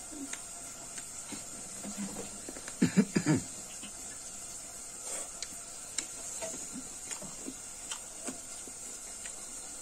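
Close-miked chewing and mouth sounds: scattered small clicks, with a short run of louder mouth noises about three seconds in, over a steady faint hiss.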